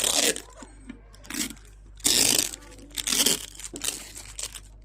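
Packaging crinkling and rustling as it is handled, in several short bursts, the loudest about two seconds in.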